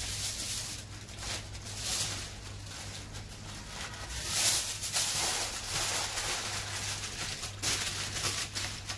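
Aluminium foil crinkling and rustling as hands fold and crimp it shut around a food parcel, in irregular crackly bursts.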